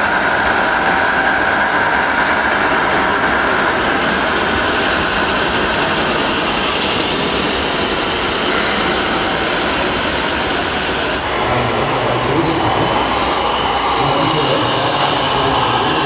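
Steady din of a busy model-fair hall: running RC models and a background murmur of voices blend into a dense rumble. A few high whines from small electric motors rise and fall in the last few seconds.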